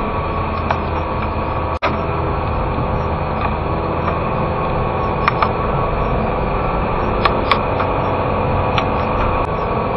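Steady car engine and tyre noise heard from inside the cabin while driving on a wet road, with a few light clicks and a momentary dropout about two seconds in.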